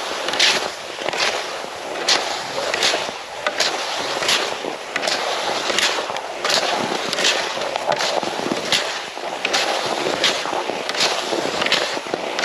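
Rhythmic strides along a trail: a crisp scrape or crunch about every three-quarters of a second over a steady hiss of motion.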